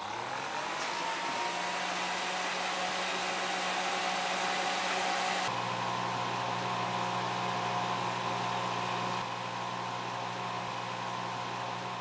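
Small 10-watt electric desk fan blowing air through the fins of an aluminium transmission-cooler heat exchanger: a steady rush of air over a low motor hum. The pitch rises over the first second as the fan spins up, and the hum shifts abruptly twice.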